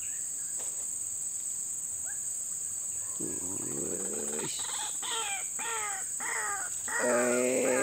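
Steady high-pitched insect drone, with a bird calling in a run of short falling notes from about halfway. Near the end a louder, drawn-out call with a wavering pitch takes over.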